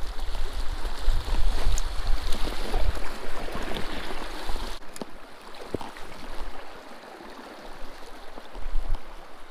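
Fast-flowing creek water rushing and babbling, with heavy low rumbling noise on the microphone in the first half. About halfway through the sound drops abruptly to softer running water with a few light knocks and rustles.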